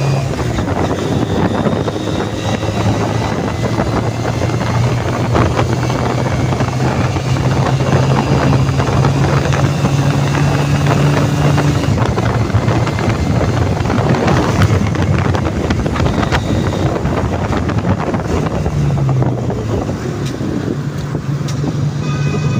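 Honda CD200 Roadmaster's parallel-twin engine running while riding, with wind rushing over the microphone. The engine note holds steady, then dips and comes back up about two-thirds of the way through.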